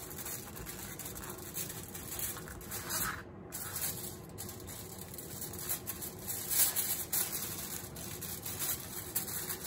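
Aluminium foil crinkling and rustling in irregular bursts as it is folded and creased by hand, its ends pinched shut.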